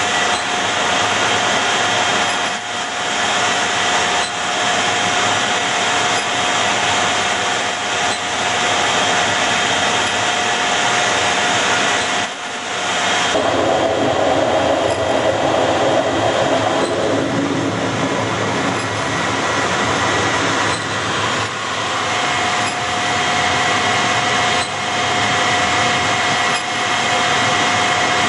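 Jet engine noise on a carrier flight deck: a loud, steady rush with a high, even whine. About halfway through it changes for several seconds to a heavier sound with a lower hum, then settles back to the steady rush and whine.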